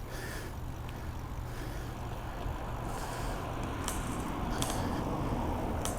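Bicycle rolling over rough ground: a steady rumble of tyres and ride noise that grows a little louder midway, with a few sharp clicks from the bike.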